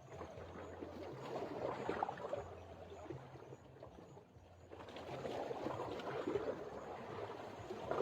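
Water sloshing and lapping, swelling up twice like waves washing against a boat hull, over a faint steady low hum.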